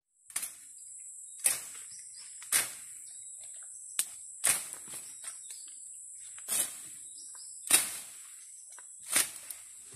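A machete slashing through undergrowth: about eight sharp cutting strokes, irregularly spaced a second or so apart. Behind them, a steady high-pitched insect drone.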